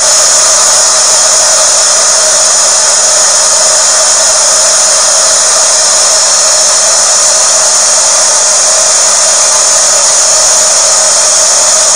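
Loud, steady hiss of static-like noise, unchanging throughout, that switches on and cuts off abruptly.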